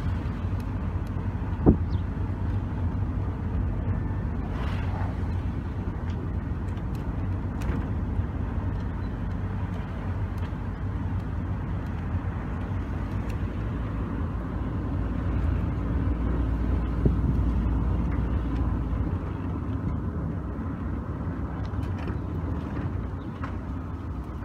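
Steady low rumble of wind buffeting a phone's microphone outdoors, with a sharp knock about two seconds in.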